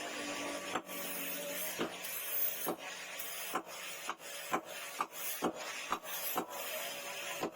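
Blacksmith working rebar: short regular strokes on metal over a steady hiss, about one a second at first and about two a second from halfway through.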